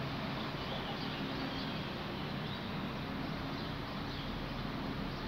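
Open station ambience dominated by a low, steady rumble from a diesel multiple unit pulling away into the distance, with a few faint bird chirps.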